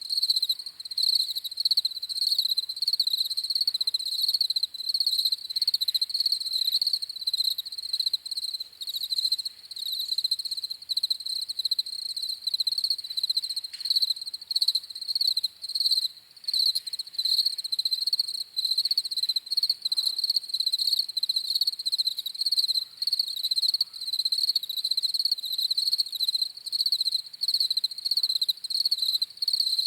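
Crickets chirping steadily in rapid, continuous pulsing trills, the chirps high-pitched and overlapping.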